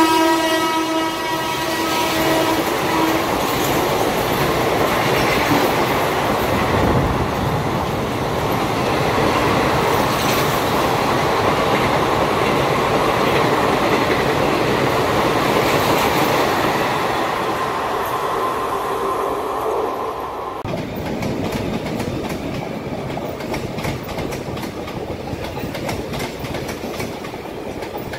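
An Indian Railways WAP-4 electric locomotive's horn sounding as the express passes at speed, several tones held together, fading out about three seconds in. Then the steady running noise of its coaches going by. About twenty seconds in it cuts to a second passing express, quieter, its wheels clicking regularly over the rail joints.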